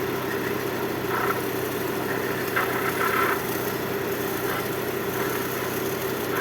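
Lada Kalina Cross's 16-valve four-cylinder engine idling steadily with its alternator belt being dressed with rosin. A few short higher-pitched sounds come over the idle, about a second in and again around the middle, the loudest stretch lasting about a second.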